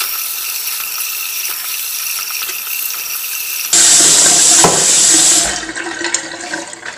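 Kitchen faucet running into a stainless steel sink as cucumbers are rinsed in a plastic colander. The water grows louder and fuller about four seconds in, then dies away near the end.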